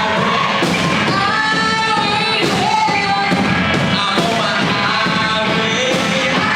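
Live rock band playing with a singer over drums and guitars, echoing in a large hall.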